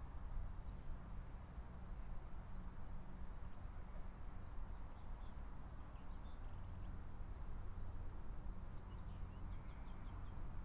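Faint steady outdoor hum with a few scattered high bird chirps.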